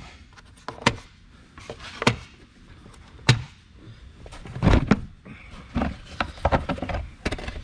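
Plastic clicks and knocks as the intake hose and airbox of a 2014 Ram 1500 are unclipped and pulled loose. There are a few separate sharp clicks, then a louder rubbing knock about five seconds in, and a quick run of clicks near the end.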